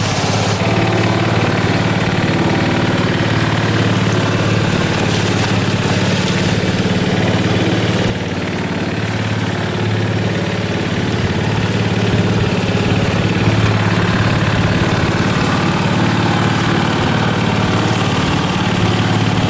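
Engine of a small wooden river ferry boat running steadily under way, a loud, even low hum, with a slight dip in level about eight seconds in.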